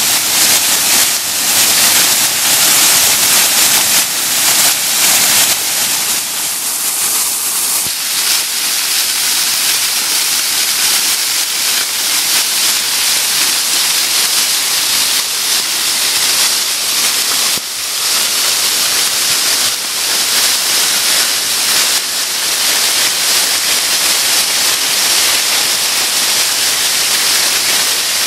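Wet-weather waterfall running full after heavy rain, water pouring over rock ledges and splashing into the pool below: a loud, steady, bright hiss of falling water. The sound thins a little about six seconds in.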